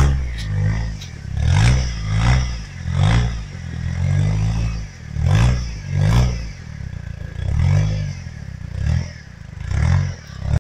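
Engine of a tube-frame off-road buggy revving in repeated surges, about one every second or so, as it crawls up a steep slope. Short clatters and scrapes come with the surges.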